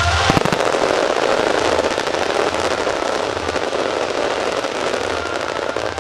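Starmine fireworks: a few sharp bangs about a third of a second in, then dense, continuous crackling of many small bursts, thinning a little near the end.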